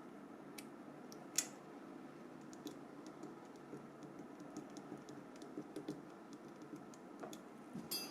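Faint, scattered small clicks and light tapping of a phone's small plastic parts and tools being handled during reassembly, with one sharper click about a second and a half in.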